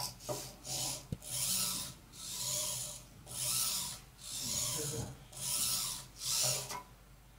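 Bittle robot dog's leg servos whirring in repeated bursts about once a second as it does push-ups, lowering and raising its body.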